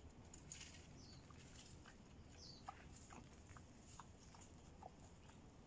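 Faint scattered clicks, crackles and rustles of wild boars foraging and chewing in dry leaf litter and twigs, with two brief high chirps in the first half.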